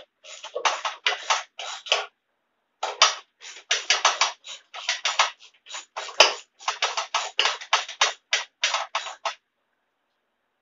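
Ratchet wrench clicking in quick strokes, several a second, with a short pause about two seconds in and a single sharp knock about six seconds in; it stops about nine seconds in.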